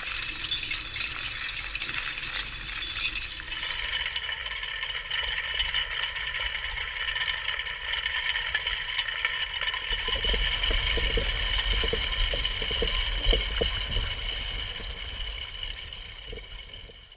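Bottom trawl gear towed over the seabed, heard underwater: a continuous metallic rattling and clinking, with a heavier low rumble and knocks from about halfway through, fading out at the end.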